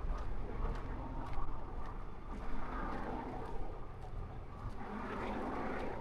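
A motor vehicle engine running steadily with a low rumble, with a swell of noise near the end.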